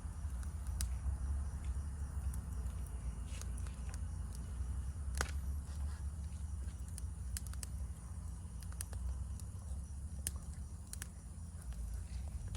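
Campfire crackling, with scattered sharp pops over a steady low rumble, and faint insects chirring steadily in the background.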